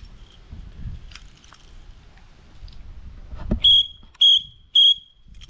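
Three short high-pitched whistled notes, evenly spaced about half a second apart, each held at one steady pitch, after a single knock.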